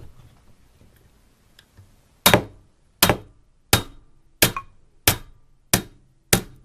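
A ball-peen hammer striking a metal combination lock seven times, steady blows about two-thirds of a second apart, each a sharp metallic hit with a short ring, as the lock is beaten in an attempt to force it open.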